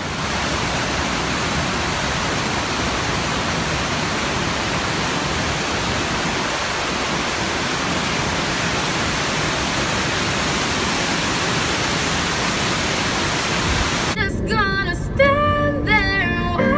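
Water pouring over a low river dam: a steady, even rush. About 14 s in, it cuts abruptly to music with singing.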